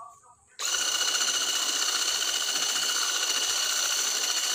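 Electric hand mixer with a whisk attachment switching on about half a second in, then running with a steady whine while beating cake batter in a plastic bowl.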